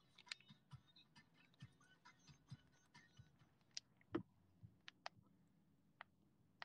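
Near silence with faint, irregular clicks and ticks. They come thickly for the first few seconds, then only now and then, and the loudest is a single sharper click a little after four seconds.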